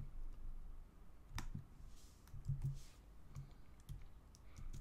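A few sharp, irregularly spaced clicks from a computer mouse and keyboard, as code is copied and pasted.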